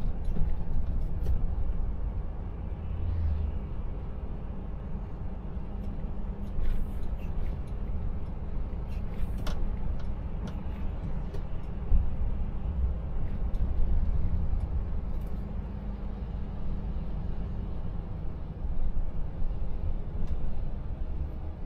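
Volvo FH Aero truck heard from inside the cab while cruising at about 50 km/h on a wet road: a steady low rumble of diesel engine and tyres, with a few faint clicks and knocks.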